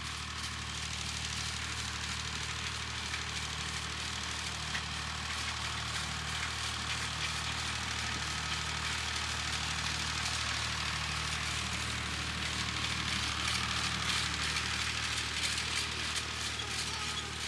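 Massey Ferguson 35 tractor engine running steadily at a distance, a low hum with a steady hiss over it.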